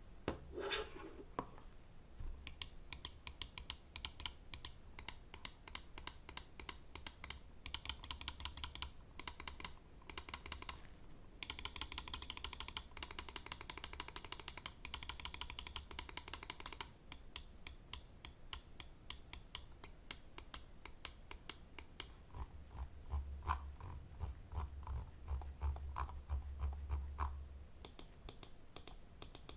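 Pulsar X2V2 Mini gaming mouse buttons clicking: fast runs of rapid clicks, then slower single clicks in the second half.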